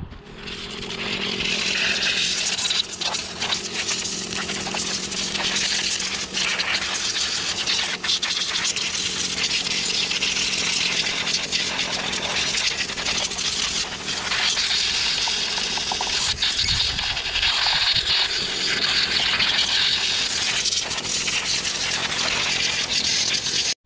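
Compressed-air blow gun hissing in a long, near-continuous blast with a few brief breaks, blowing dirt and debris off a lawn mower engine with its flywheel removed. It starts abruptly and cuts off abruptly.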